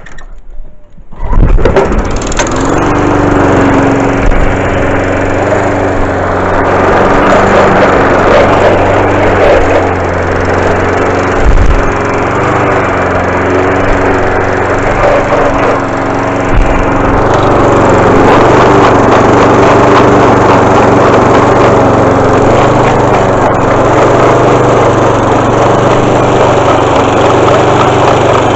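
Honda HRB 423 self-propelled petrol lawn mower starting about a second in and then running steadily. The self-propel gearbox is being run to show its noise and juddering; it leaks oil and a mechanic judged the gearbox gone.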